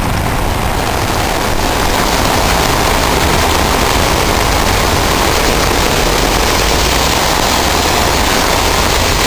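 Torrential cloudburst rain falling in a steady, loud, unbroken rush, with a deep rumble underneath.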